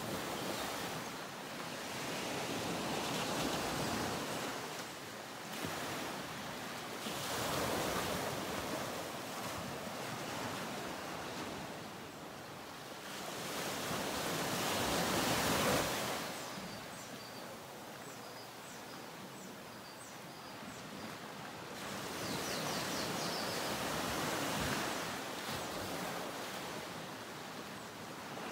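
Ocean surf: waves washing in and drawing back in slow swells several seconds apart. A short run of faint high ticks comes about two-thirds of the way in.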